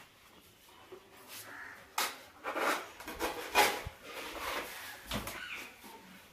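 Rustling and clicking of things being handled close by, in a run of bursts between about two and five seconds in, loudest near the middle, followed by a dull thump.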